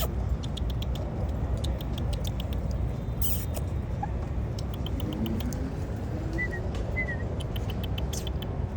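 A squirrel nibbling a cookie: quick runs of small crunching clicks, several a second, in bursts. A steady low rumble runs underneath.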